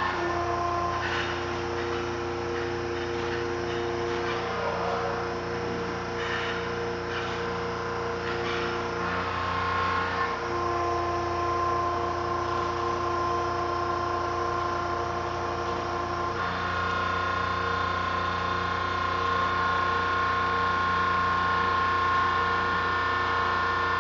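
Hydraulic power unit running the student-built hydraulic crane: a steady pump whine and hum whose tones shift a few times as the crane is worked.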